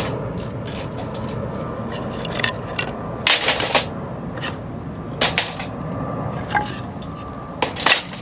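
Ferro-rod fire starter being struck with its metal striker: a few short, sharp scraping strokes a couple of seconds apart, over a steady background rush, as sparks are thrown to light the tinder.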